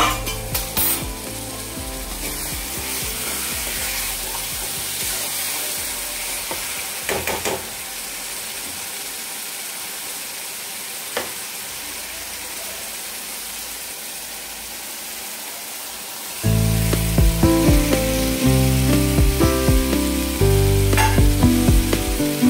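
Spice masala sizzling as it fries in a steel kadai, with a few short knocks of a spoon against the pan. Loud background music comes in late on.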